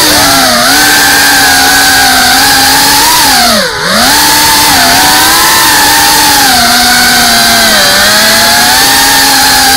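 FPV quadcopter's brushless motors and propellers buzzing loudly, heard close up from the onboard camera. The pitch dips sharply and briefly about four seconds in as the throttle is pulled back, then climbs again, with smaller dips near the start and about eight seconds in.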